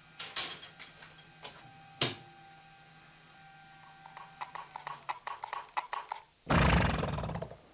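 Cartoon horse sound effects: hooves clip-clopping in a quickening run, then a loud rough snort of about a second. Two sharp clicks come first, the second one loud.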